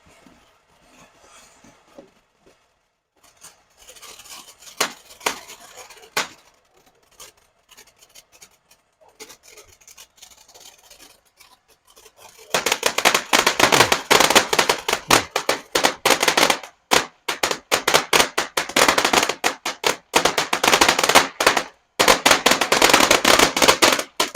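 TNT Disco Turkey, a four-tube consumer firework, crackling: scattered pops a few seconds in, then a dense, loud run of rapid crackles through the second half that cuts off abruptly near the end.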